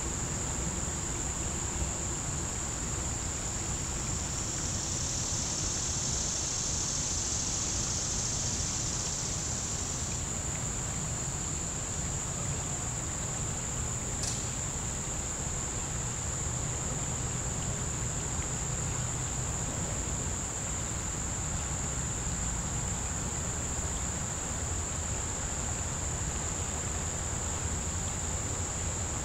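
Steady high-pitched drone of insects in the creekside trees. A second, slightly lower insect buzz joins about four seconds in and cuts off suddenly around ten seconds. A low, even rumble sits underneath, with one brief click about halfway through.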